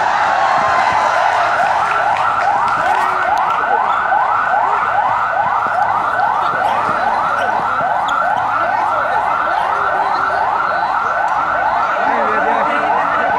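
A siren sounding a fast yelp: a rising sweep repeated about three times a second, steady and loud.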